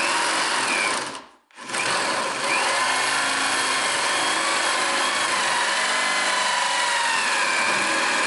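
Handheld electric drill boring into the end grain of a wooden chair leg, the motor whine wavering in pitch as the bit loads up in the wood. It stops briefly about a second in, then starts again and runs steadily.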